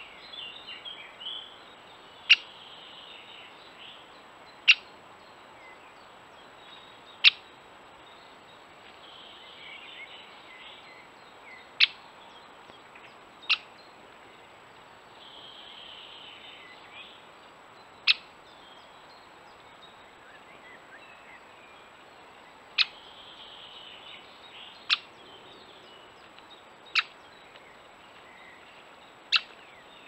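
Great spotted woodpecker giving sharp single 'kik' calls, about ten over the stretch, each a few seconds apart, with faint song from other birds behind.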